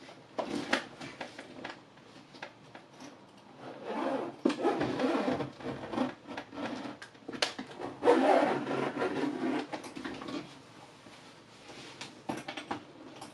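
A hard-shell suitcase being shut: scattered knocks and rustling as the lid is pressed down over the packed clothes, and its zip dragged around the edge in two longer runs, about four and eight seconds in.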